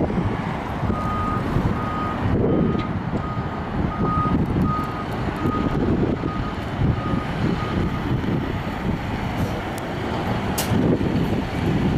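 Road traffic passing at a busy intersection, with wind on the microphone. From about a second in until about two-thirds of the way through, an electronic backup alarm beeps steadily at one pitch, about twice a second.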